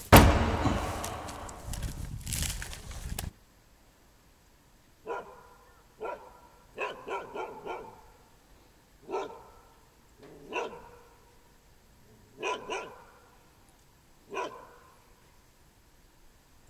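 A dog barking in short sharp barks, about a dozen in all, some single and some in quick runs of two to four, starting about five seconds in. Before the barking, a loud rushing noise fades and then cuts off abruptly about three seconds in.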